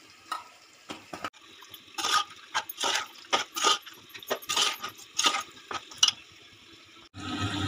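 A perforated metal skimmer ladle scraping and clinking irregularly against the sides and bottom of a metal pot while thick, wet chicken masala is stirred. The clinks stop about six seconds in.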